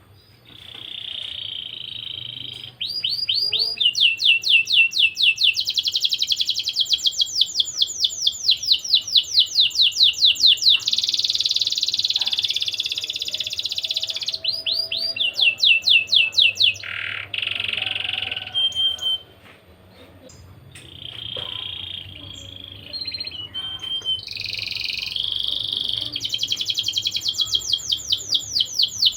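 Canary singing a long song of rapid trills, runs of fast repeated chirps and buzzy rolls, with a short pause about two-thirds of the way through.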